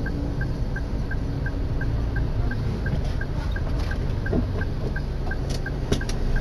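Low rumble of street traffic and motorbikes heard from inside a stopped vehicle's cabin, with a light, regular tick about three times a second; a few sharp clicks sound near the end.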